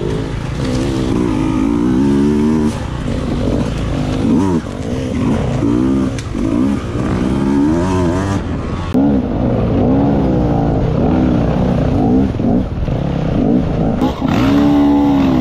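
Dirt bike engine revving up and down repeatedly, its pitch rising and falling every second or so as the throttle opens and closes.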